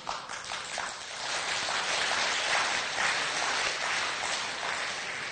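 Audience applauding, swelling over the first second or two and fading out near the end.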